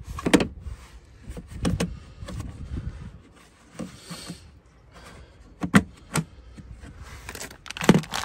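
Hard plastic cargo-floor storage cover of a 2019 Jeep Wrangler Sport being handled: the hinged lid is lifted and then pressed back into place, making a handful of sharp plastic knocks and clicks. The loudest knocks come just after the start, in the middle, and near the end, with rustling handling between them.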